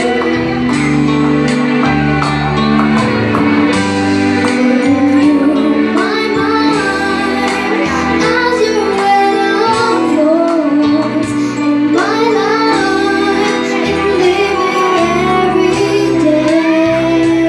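A young girl singing a song into a handheld microphone over backing music.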